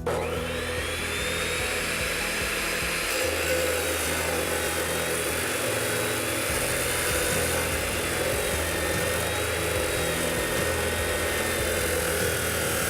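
RIDGID 14-inch abrasive cutoff saw (chop saw) starting with a whine that rises as the wheel spins up, then running steadily as its abrasive wheel cuts cast iron pipe.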